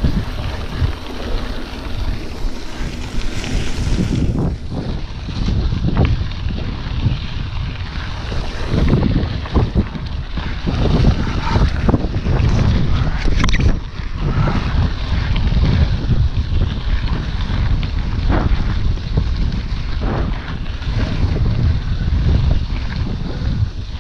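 Wind buffeting the microphone of a camera on a mountain bike riding fast over a dirt and gravel track, with frequent knocks and rattles as the bike jolts over bumps.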